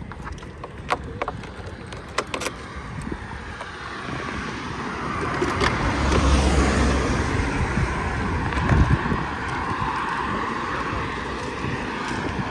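Car on the move, with tyre and road noise building about four seconds in and then holding steady, after a few sharp clicks near the start.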